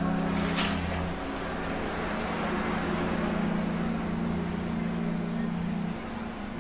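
A steady low motor hum under an even rushing background noise, with a brief rustle about half a second in.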